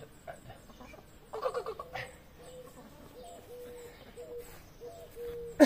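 Chickens clucking: a brief louder call about a second and a half in, then a run of short, evenly spaced low clucks, about two a second.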